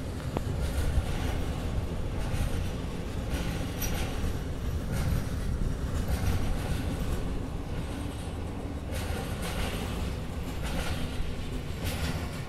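Intermodal freight train of pocket wagons carrying lorry trailers rolling past: a steady rumble of steel wheels on the rails, with a clatter about once a second as the wagons' bogies go by.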